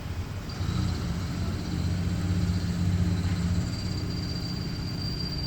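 CNC milling machine running: a steady hum, joined about half a second in by a thin, steady high-pitched whine.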